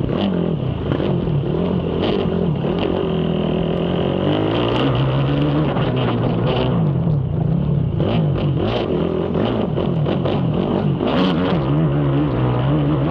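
Race ATV engine revving up and down with the throttle as the quad is ridden hard over a cross-country track, with sharp knocks and clatter from the bumps.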